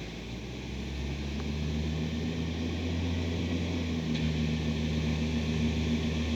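Iveco ACCO garbage truck's diesel engine running at a steady pitch, growing louder over the first couple of seconds and then holding.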